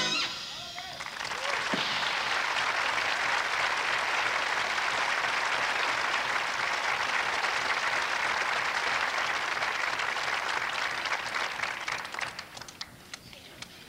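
Concert audience applauding just after a big band's last chord cuts off. The applause swells within about a second, holds steady, then thins to scattered claps near the end.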